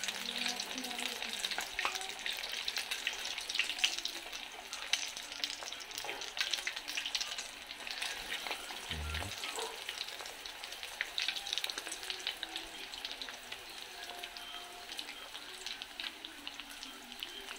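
Breaded chicken drumsticks deep-frying in hot oil in a stainless steel pan: a steady sizzle full of small crackles and pops while the pieces are turned with metal tongs. The frying settles a little quieter in the second half.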